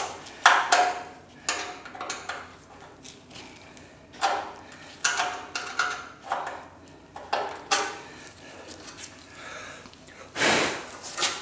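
Irregular sharp metallic clicks and clinks of small steel pieces and hand tools against sheet-steel body panels, some ringing briefly, as drilled-out spot-weld plugs are worked loose and lifted out. A louder half-second noise comes near the end.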